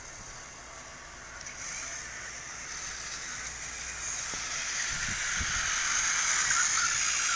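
Battery-powered toy train engines whirring along plastic track: a high-pitched motor whir that starts about a second and a half in and grows steadily louder. A couple of soft knocks about five seconds in.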